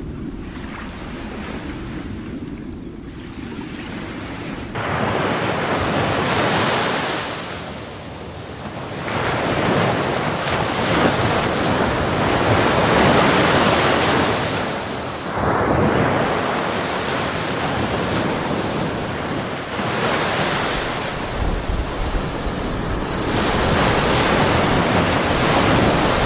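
Sea waves breaking and washing on the shore, surging and falling back every few seconds, with wind buffeting the microphone.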